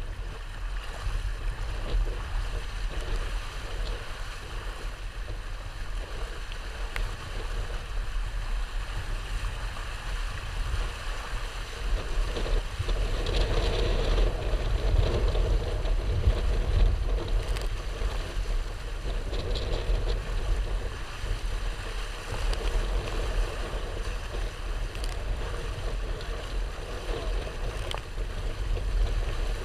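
Water rushing and splashing along the hull of a Hobie Tandem Island trimaran sailing fast, with wind buffeting the microphone in a steady low rumble. It gets louder for a few seconds in the middle as a gust drives the boat harder.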